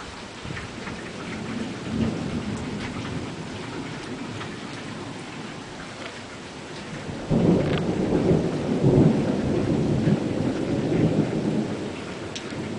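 Steady rain with scattered drips, and a low thunder rumble swelling about two seconds in. About seven seconds in, a loud thunderclap breaks suddenly and rumbles for about four seconds before easing back under the rain.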